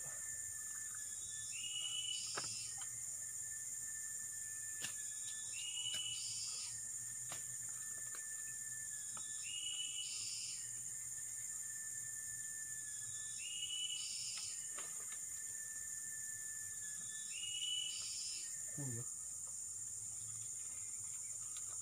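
Forest insects buzzing in a steady high drone, with a call repeating about every four seconds, five times: a short high note that drops into a long, steady, lower whistle. A brief low voice is heard near the end.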